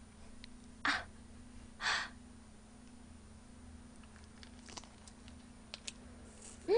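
Quiet eating of lobster meat pulled from the shell: two short breathy mouth sounds about a second apart, then a few faint small clicks, over a steady low electrical hum. Right at the end a short hummed voice sound rises and falls in pitch.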